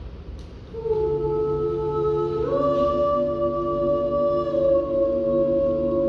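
Small mixed chamber choir singing a cappella: after a brief hush, a chord enters about a second in, moves up around two and a half seconds in, and is held as long sustained notes.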